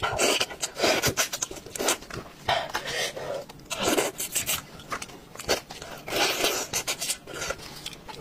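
Close-up mouth sounds of biting and chewing braised sheep's head meat and cartilage: irregular wet crunches and smacks, with plastic gloves rubbing as the meat is pulled apart.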